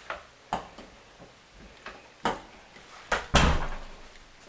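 Interior door being handled and shut: a few light knocks and clicks, then a louder thud with a short rushing tail a little past three seconds in.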